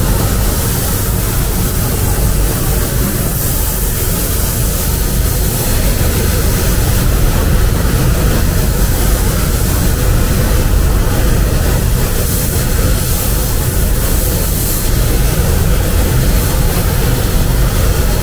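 A loud, steady machine noise, a deep rumble under an even rushing hiss, that runs without change.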